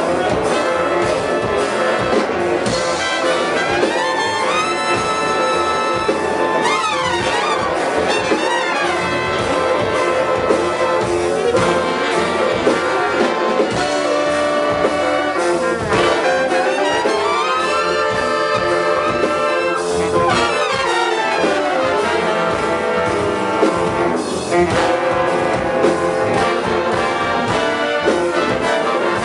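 An instrumental ensemble playing dense, freely improvised music, with horn-like held tones and several long sliding pitch glides up and down.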